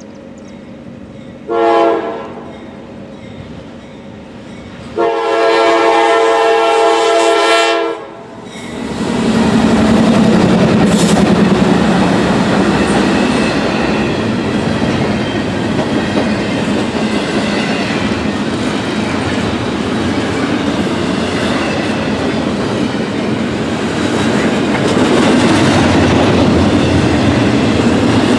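A Norfolk Southern intermodal train led by GE C44-9W (Dash 9) locomotives sounds its multi-tone horn: a short blast, then a longer one of about three seconds. The locomotives then pass close by, followed by the steady rumble and clatter of the train's wheels on the rails.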